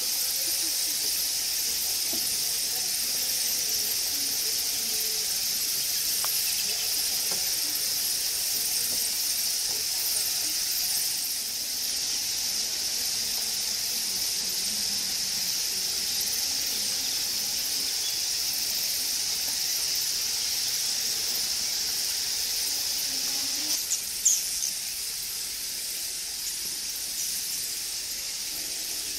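Steady high-pitched chorus of small animals, a dense hiss-like din with a fine crackle in it, and one brief louder squeak about 24 seconds in.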